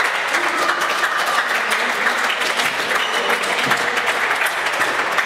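Spectators applauding: many hands clapping in a dense, steady patter that continues throughout.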